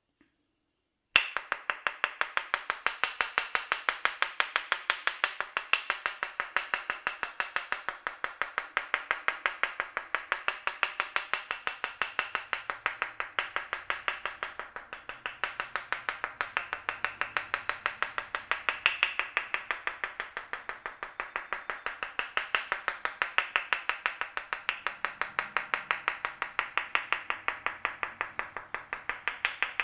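Rapid, rhythmic percussive massage strikes on the body, several a second, keeping an even beat after starting about a second in.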